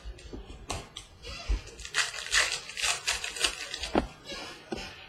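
Trading cards being handled and flipped through: a run of clicks and taps as cards slide against one another, with a denser rustle from about two to three and a half seconds in.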